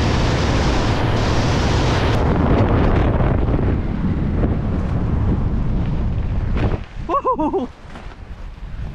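Freefall wind rushing over a skydiver's camera microphone, a loud steady rush that drops away sharply about seven seconds in, followed by a brief yell.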